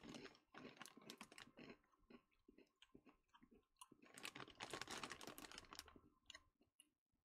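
Faint crunching of small, hard, spicy Cheetos being chewed, in two spells of crisp crunches: one in the first second or two and a louder one from about four to six seconds in.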